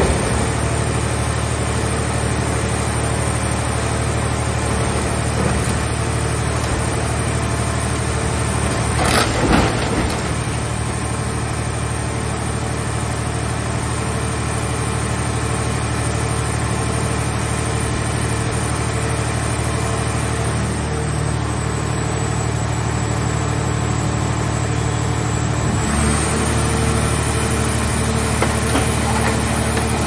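Hydraulic scrap-car baler at work: its hydraulic power unit hums steadily under load while the press lid folds down and crushes a car body. A brief burst of crunching metal comes about nine seconds in, and the hum shifts in pitch near the end.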